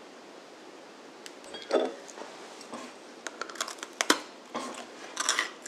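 Crisp pecan sablé cookie crunching as it is bitten and chewed: a loud first crunch about a second and a half in, then a run of sharp crackling crunches.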